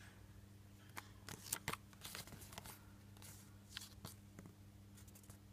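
Faint crinkling and rustling of a thin paper Kinder Surprise toy leaflet being handled and turned over: a scatter of small crackles, busiest in the middle, over a low steady hum.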